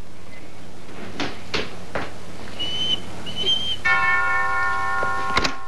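A doorbell chime rings, several bright tones sounding together and hanging on, with a sharp latch click near the end. Before it come a few sharp taps and two short, high whistled notes.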